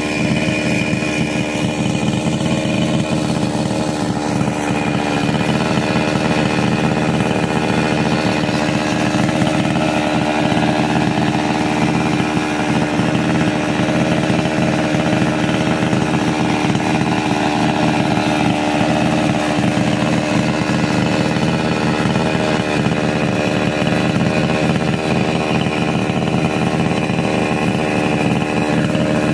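Two-stroke Ogawa chainsaw with a 22-inch bar running steadily, its engine note holding one even pitch throughout.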